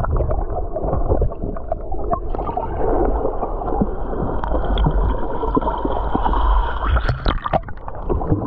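Muffled gurgling and bubbling of seawater heard with the microphone under the surface, with a few sharper knocks near the end.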